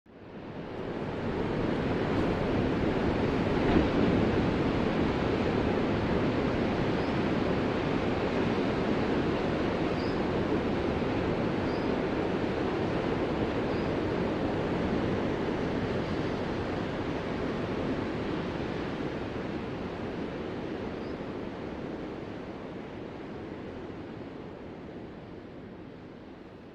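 Ocean surf washing on a shore: a continuous rushing swell that builds up within the first second and slowly fades over the last several seconds.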